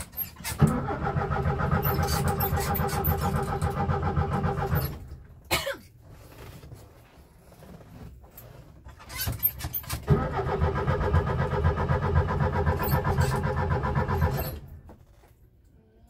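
Starter cranking the 1971 VW Bus's air-cooled flat-four engine in two long attempts of about four to five seconds each, a few clicks in the pause between them. Each time the cranking stops abruptly without the engine catching: the bus won't start.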